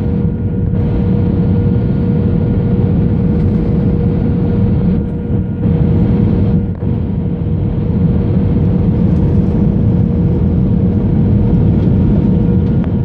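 Steady aircraft interior noise on the approach: a loud rushing rumble with a steady hum, dipping briefly about five seconds in.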